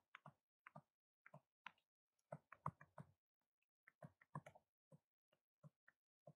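Faint, irregular taps and scratches of a stylus writing on a tablet screen: short strokes, several a second, with brief gaps between words.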